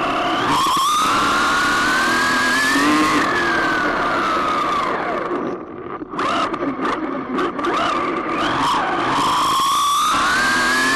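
RC car's motor whining as it speeds up and slows down around a lap. The whine rises, falls away near the middle with a few short throttle blips, then climbs again as it accelerates.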